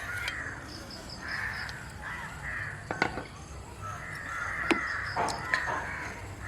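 Crows cawing repeatedly in the background, a string of short calls every second or so. A few sharp knocks are heard in the second half.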